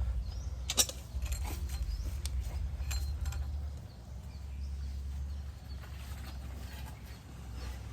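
Scattered sharp clicks and knocks of tools and metal pipe fittings being handled, the strongest about a second in, over a steady low rumble.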